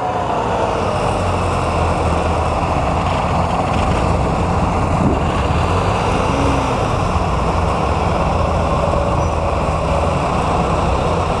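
Engine of a small tracked rice-hauling carrier running steadily as it crawls across a rough paddy field loaded with sacks of rice.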